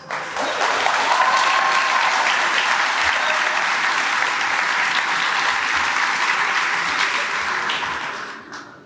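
Audience applauding loudly, starting abruptly and dying away near the end.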